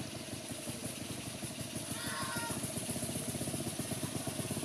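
A small engine idling steadily with a fast, even putter.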